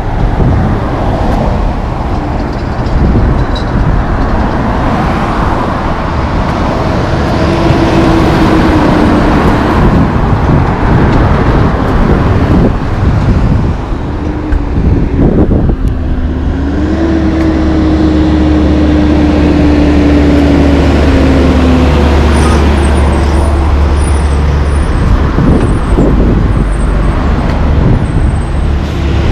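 Road traffic passing close by: cars, pickups and a semi-truck going by with engine and tyre noise. From about the middle a steady low rumble comes in and holds to the end.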